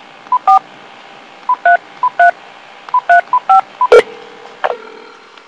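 Telephone keypad dialing: five short DTMF touch-tones at irregular intervals, each just after a brief single beep. About four seconds in there is a sharp click and a second one shortly after, then a faint steady tone on the line.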